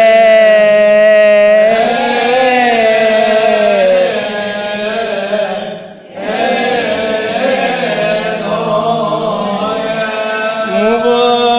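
Solo male voice chanting a long melismatic line of Coptic liturgical chant, with held notes and ornamental turns. There is a brief breath about six seconds in.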